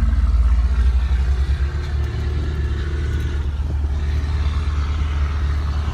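A 2007 Holden Commodore SS-V's 6.0-litre V8, fitted with an aftermarket catback exhaust, idling steadily with a deep, low, even note.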